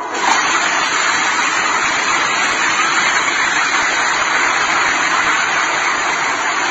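Multi-storey apartment building collapsing: a loud rushing crash of falling concrete and debris breaks in suddenly and keeps going as a steady, dense noise for several seconds.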